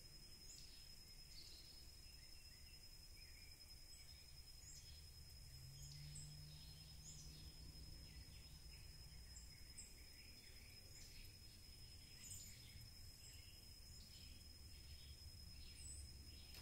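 Near silence: faint rural outdoor ambience with scattered soft bird chirps and a steady high-pitched tone, likely insects, over a low rumble.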